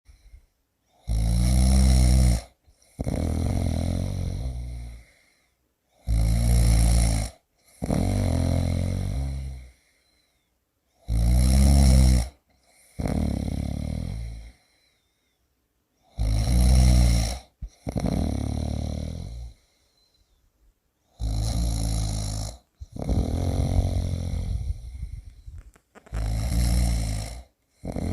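A person snoring loudly and evenly, about six times: each cycle a short loud snore followed by a longer, quieter one, repeating roughly every five seconds.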